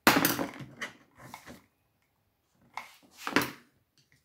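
Handling noises from a Stihl MS361 chainsaw's carburetor being worked loose by hand and tool: knocks and rustling scrapes of metal and plastic parts. The loudest comes right at the start, a few smaller ones follow about a second in, and another loud one comes about three seconds in.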